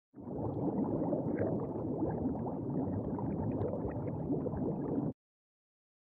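Intro sound effect: a dense, steady low rumbling noise lasting about five seconds, then cutting off suddenly.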